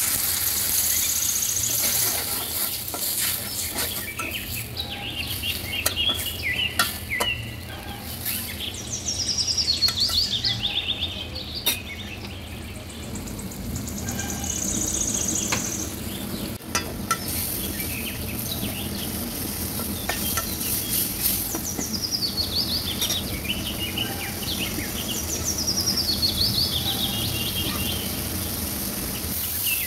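Fried onion masala sizzling and simmering in a steel karahi after water is poured in, with a metal spatula stirring and now and then clicking against the pan. A bird sings descending trilled phrases several times in the background.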